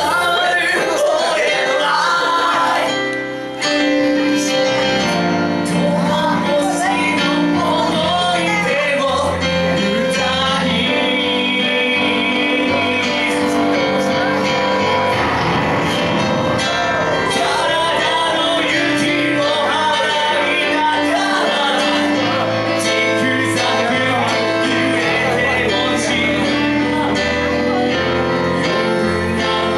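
Live band performance of a pop song: a male vocalist singing into a microphone over keyboard accompaniment, with a short dip in the music about three seconds in.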